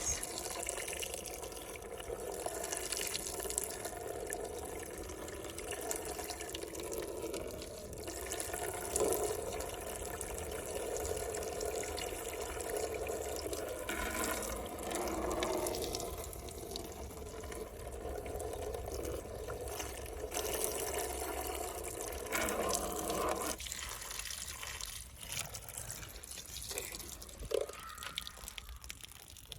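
Water running steadily, as from a tap or a toy car-wash pump, while toy cars are washed.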